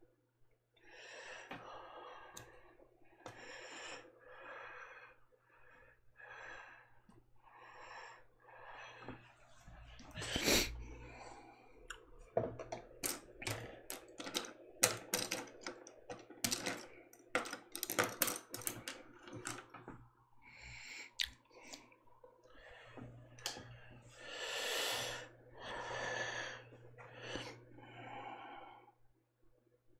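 Paintbrush strokes on paper: a series of short swishes about once a second, then a run of quick, sharp clicks through the middle, then a few longer swishes near the end.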